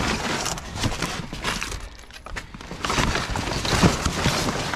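Scrap metal and junk clattering and knocking as pieces are shifted and pulled around in a dumpster, with a short lull about two seconds in.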